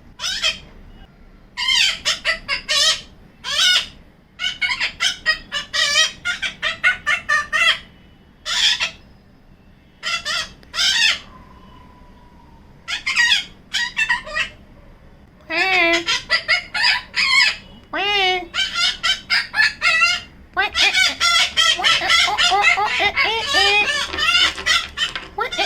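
Yellow-collared macaw making weird, warbling chatter in bursts of rapid, wavering calls with pauses of a second or two between them. The calls run almost without a break near the end.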